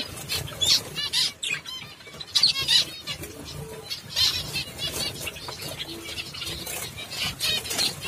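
A colony of zebra finches calling: many short, high chirps overlapping throughout, with wing flutters as birds flit between perches.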